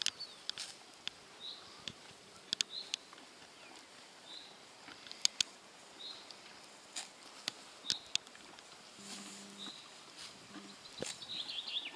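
A horse grazing close by, tearing and chewing grass in sharp, irregular crunches. A bird repeats a short high call every second or two, with a burst of quick chirps near the end.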